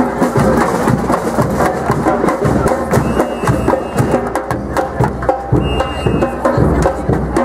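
Protest percussion: drums and sharp knocking beats played by a crowd, going on steadily with many repeated hits. Two short high tones sound about three and six seconds in.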